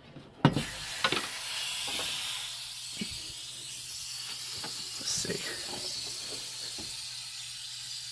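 A clunk about half a second in as the water heater's supply valve knob is turned, then a steady hiss of air and water rushing through the partly closed valve and pipes, with a few small knocks.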